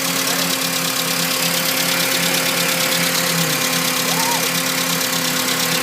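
Mercedes C230's M271 supercharged four-cylinder engine idling steadily, running just after its timing chain and balance-shaft chain were replaced.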